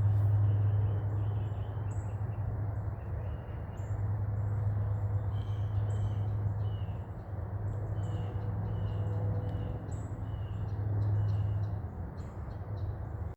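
Wild birds calling, short high chirps and calls scattered throughout, over a steady low rumble.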